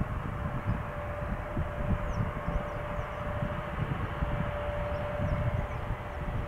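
Distant jet airliner on approach: a steady engine hum with one held whine, under gusts of wind buffeting the microphone. Faint bird chirps come and go.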